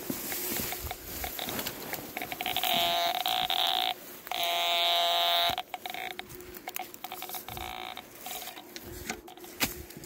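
A metal detector's buzzing target tone sounds three times: a long tone about two seconds in, another about four seconds in, and a short fainter one near eight seconds. Short clicks and rustling in dry grass run alongside, with a shovel working in the ground.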